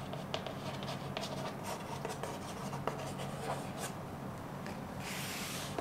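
Chalk writing on a blackboard: scattered light taps and scratches of the chalk, then a longer steady scrape near the end.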